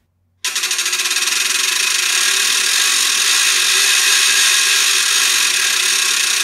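Orchestral crank ratchet (Ratsche) with a wooden resonance box, its crank turned steadily. The tongues snap over the cogwheel in a loud, continuous rapid clatter that starts about half a second in.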